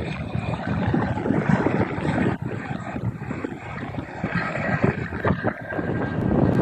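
CH-47 Chinook tandem-rotor helicopter flying past, its rotors making a rapid, uneven chopping flutter.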